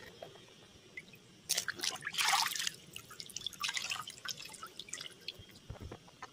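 Water splashing and dripping in a plastic tub as a toy dinosaur head is washed in it. The sound comes in a few irregular bursts, the loudest about two seconds in.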